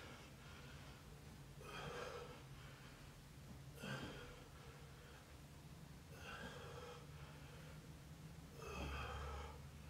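A man's heavy breathing from exertion: four faint breaths about two seconds apart, over a low steady hum.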